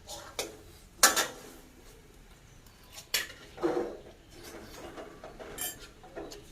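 Kitchen utensils clinking and knocking against pots and dishes: about six separate sharp clinks, the loudest about a second in.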